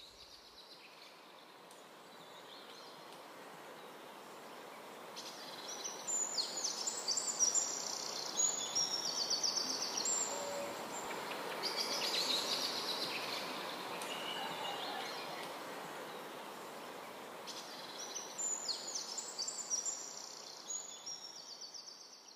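A small songbird singing in high, quick chirping phrases, in two spells, over a steady hiss of outdoor background noise.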